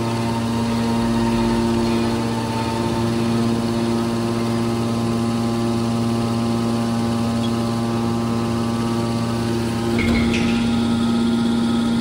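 Hydraulic power unit of a scrap metal baler, an electric motor driving a hydraulic pump, running with a steady hum of several held tones. About ten seconds in there is a click, and after it the hum runs slightly louder.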